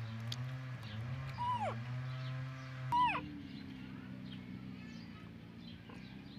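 A baby macaque gives two short squeaks, each sliding sharply down in pitch, about a second and a half in and again at three seconds, the second one louder. Under them runs a steady low hum, with faint high chirps.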